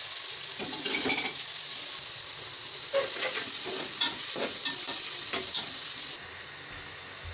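Sliced onions sizzling as they fry in hot oil in a pressure cooker pot, with a steel slotted spoon scraping and clinking against the pot as they are stirred. The sizzle drops off abruptly about six seconds in.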